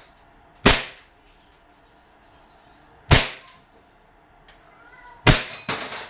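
WE Glock 34 gas blowback airsoft pistol on green gas, firing single shots: three sharp cracks, each with its slide cycling, spaced about two and a half seconds apart. The last shot is followed at once by a quick run of further sharp knocks.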